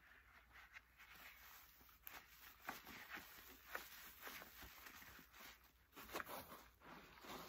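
Sponges squeezed and pressed by hand in a tub of sudsy rinse water, making faint wet squelches and crackling suds as a string of short, irregular crackles.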